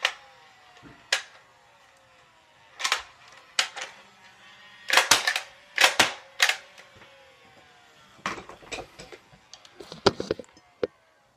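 Nerf N-Strike Elite Stockade flywheel blaster being fired: a series of sharp clacks from the trigger pulls and the rotating cylinder, with a faint whine from the battery-driven flywheels between them. From about eight seconds in, a quicker run of knocks and rattles as the blaster is handled.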